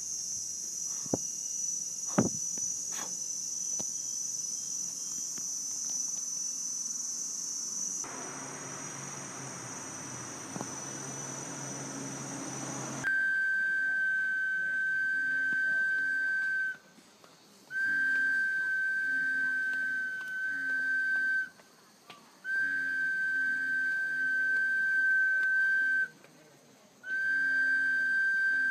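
A steady high-pitched insect drone with a few clicks, then a short stretch of even noise. After that a mouth-blown whistle sounds one steady held note in phrases of three or four seconds, with short breaks between them.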